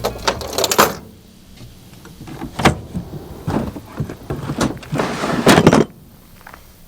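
Drawers of a DECKED truck-bed drawer system sliding and rolling in the truck bed, with a sharp knock a little before the middle and a longer slide in the second half.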